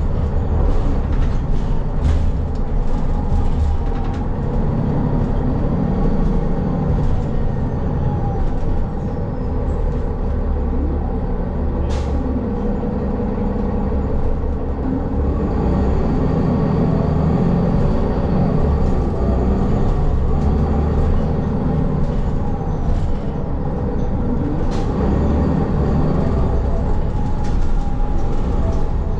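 City transit bus running, heard from inside the cabin: a steady low engine and road rumble, with a few sharp rattling clicks.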